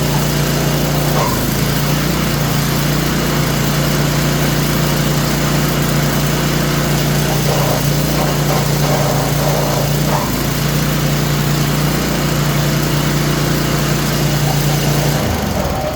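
Craftsman snowblower's small gas engine running steadily, with brief higher-pitched squeals over it now and then, a squeal the mechanic suspects comes from a bearing. The engine shuts off near the end.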